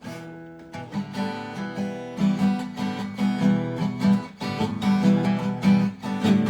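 Acoustic guitar playing, strummed and picked chords that start with a single chord and build into a steady rhythmic pattern about a second in.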